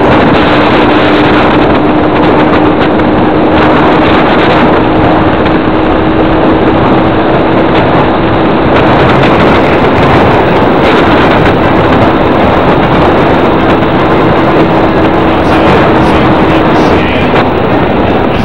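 Loud, steady rushing noise of a moving vehicle with wind on the microphone, and a steady low hum that stops about 17 seconds in.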